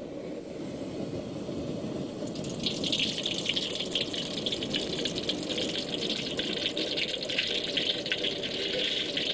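Cooking oil poured from a bottle into a large hot iron wok over a gas burner. After about two seconds the oil starts to sizzle and crackle steadily in the pan, over a low steady rush from the burner.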